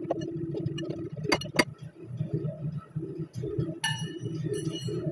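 Steel hand tools clinking against metal as a socket is worked on a ball joint nut: two sharp clicks about a second in, then ringing metallic clinks near the end, over a steady low hum.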